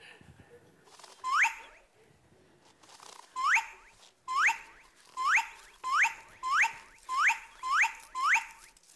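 A comic rising whistle sound effect, like a slide whistle pushed upward, sounds nine times. Each is a short upward sweep, and they come faster and closer together toward the end.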